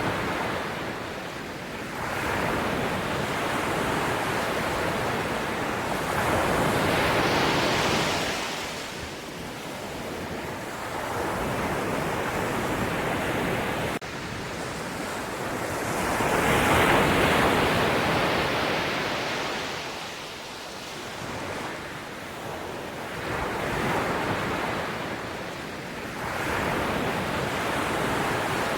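Sea waves breaking and washing ashore, the surf swelling and fading every few seconds, with the biggest wave about two-thirds of the way through. The level drops abruptly about halfway through.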